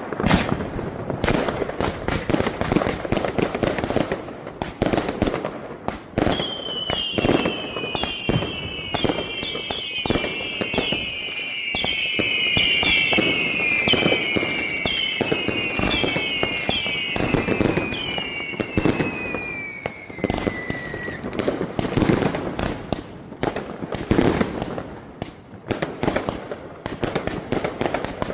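Woodstock X2 83-shot angled fireworks cake firing a rapid volley of mortar shots, with cracking bursts. From about six seconds in, a long run of overlapping falling whistles rides over the shots for some fifteen seconds.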